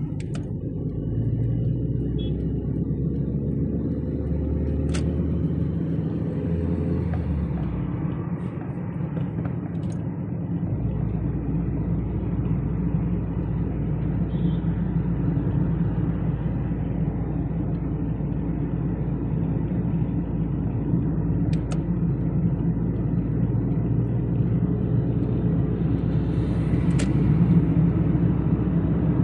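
Steady low rumble of a car's engine and tyres heard from inside the cabin while driving in traffic, with a few brief clicks.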